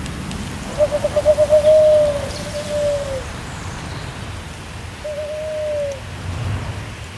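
An owl hooting. The first call starts about a second in with a quick stutter of notes and draws out into a long hoot, a second hoot follows at once, and another comes a few seconds later, all over a steady hiss.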